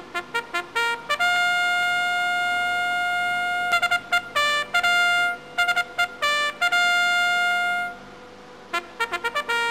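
Music: a brass-like melody of quick staccato notes and long held notes, with a short pause near the end.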